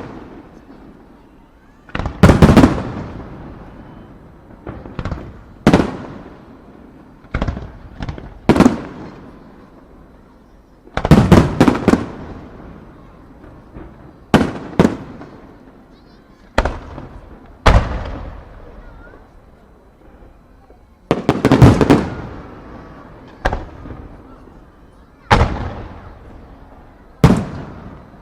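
Aerial firework shells bursting overhead: sharp booms one after another every second or two, some in quick clusters of several bangs, each fading out in a rumbling tail.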